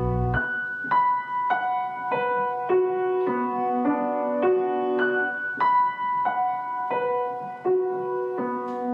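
Background music: a gentle, unhurried piano melody, with a new note about every half second. A lower accompanying part drops out about half a second in.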